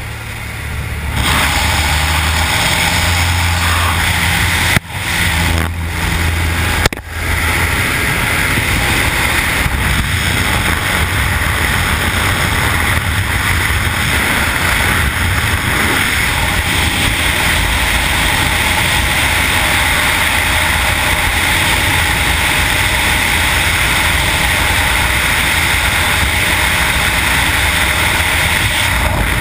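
Loud, steady rush of wind and the plane's engine and propeller through the open door of a small single-engine plane in flight, with wind buffeting the camera microphone. About a second in, the noise jumps sharply as the door is opened; a couple of short knocks follow a few seconds later.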